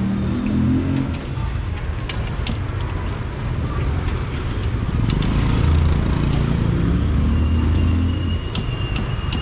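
Busy market street: a motor vehicle engine runs close by, loudest about halfway through, over scattered clatter and faint voices.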